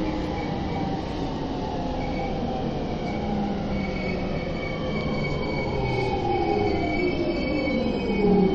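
Tokyo Metro Tozai Line train braking into a station, heard from inside the car: running rumble with the motor whine falling steadily in pitch as it slows, and a thin high squeal above it from about two seconds in.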